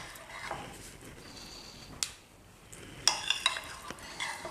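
A spoon clinking and scraping against a container and dish as requeijão cream cheese is spooned over the filling: a single sharp click about two seconds in, then a quick run of clicks about a second later.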